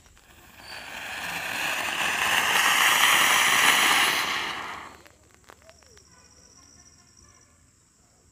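Flower pot (anar) firework spraying sparks with a loud rushing hiss that swells over the first few seconds and cuts off about five seconds in, leaving only a few faint crackles. It is one segment of a tall column of stacked flower pots burning in turn, and the remaining pots fail to catch in the rain.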